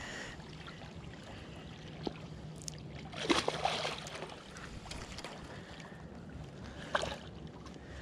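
River water sloshing, with a louder splash a little over three seconds in and a couple of short knocks.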